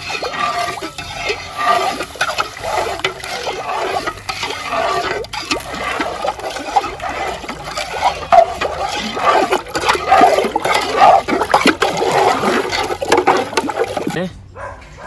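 A large aluminium pot of punch being stirred briskly with a stick, the liquid swirling and sloshing as cane sugar is poured in and stirred to dissolve. The stirring stops near the end.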